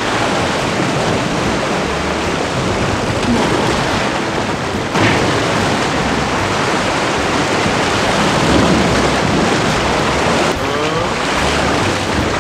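Steady rush of sea surf and wind on an exposed rocky shore, with wind buffeting the microphone. A brief knock about five seconds in.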